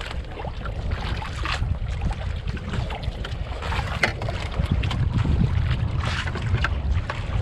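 Steady wind buffeting the microphone on a small boat at open sea, a low rumble with a few short light clicks through it.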